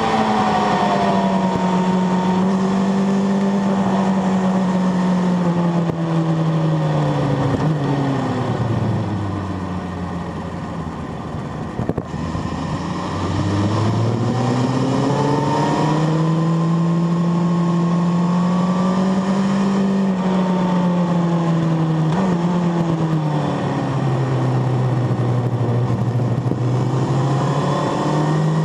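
Onboard sound of a sport motorcycle's engine at track speed, with wind rushing past. The engine is held high, then eases off and falls in pitch to a quieter coast from about six seconds in. It picks up again and climbs under throttle, drops back about twenty seconds in, and starts climbing once more near the end.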